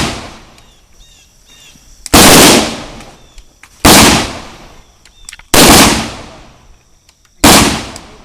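Rifle fired in slow, single aimed shots: four sharp reports a little under two seconds apart, each followed by a long rolling echo.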